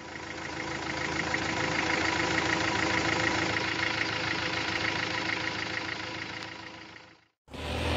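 An engine idling steadily with a regular clatter, fading in at the start and fading out about seven seconds in.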